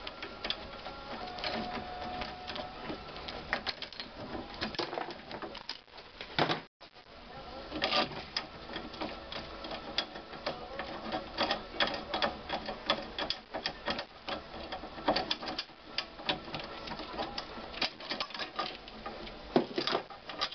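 Coil spring compressor being unwound and taken off a front strut's coil spring: fast, uneven metal clicking and rattling of the compressor's threads and hooks against the spring.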